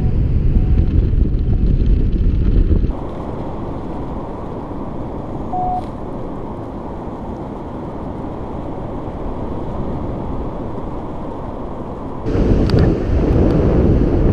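Wind buffeting an action camera's microphone during a paraglider flight. About three seconds in the heavy rumble drops to a softer, muffled rush, with one short electronic beep, typical of a flight variometer, midway; near the end the wind noise turns loud again, with sharp clicks as the paraglider comes in to land.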